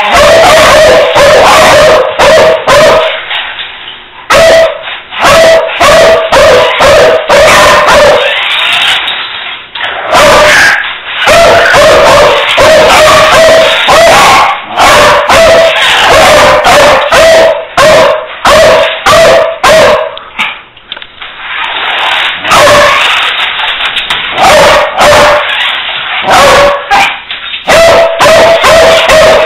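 Beagles play-barking, very loud and repeated, in long runs of quick barks broken by a few short lulls.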